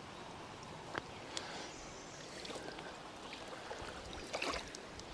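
Shallow creek water running over a rocky riffle, a steady low wash, with a couple of sharp clicks about a second in and a few small splashes near the end.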